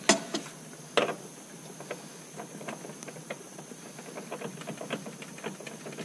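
Hand tools clinking and tapping on metal parts in a skid steer's engine bay during a fuel filter change: two sharp knocks near the start, then a string of small irregular clicks.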